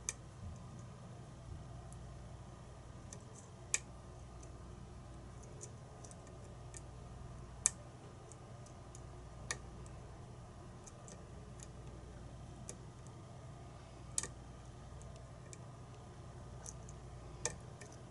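Lock pick working the pins of a challenge lock: faint, irregular small metallic clicks, about half a dozen, a few seconds apart, over a steady low hum. The lock is not opening: the picker keeps getting caught in a trap and is not getting anywhere.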